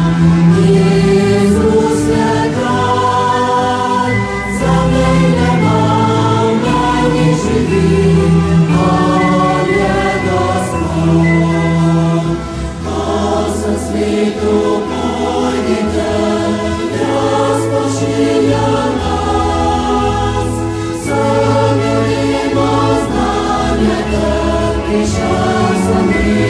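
Choir singing a Slovenian Christian praise song, with held notes over sustained bass notes.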